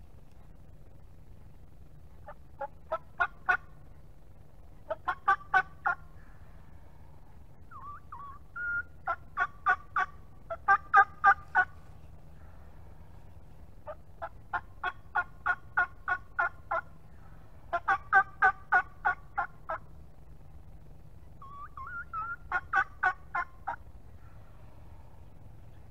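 Turkey yelping in repeated runs of evenly spaced, sharp notes, about four a second, with pauses between runs; two of the runs open with a short sliding note.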